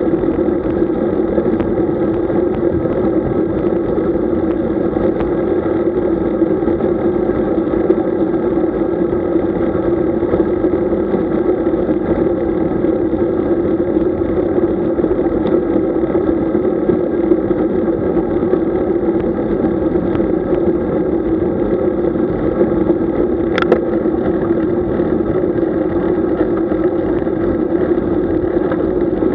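Steady wind and road noise on a camera carried on a road bike while riding, with one sharp click about 23 seconds in.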